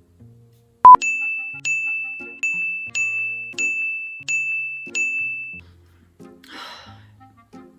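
A sharp click, then a high bell-like ding struck seven times about every two-thirds of a second, each strike ringing on into the next, then stopping. Soft background music plays underneath, and a short hiss comes near the end.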